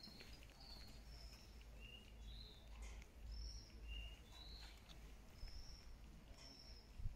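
Faint bird chirps, short high notes repeating every half second or so, over a low rumble, with one brief low bump near the end.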